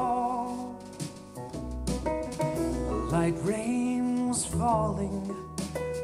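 A song with singing, played through a pair of Klipsch R-15PM powered bookshelf speakers and picked up by a microphone in the room, with strong deep bass notes about two seconds in.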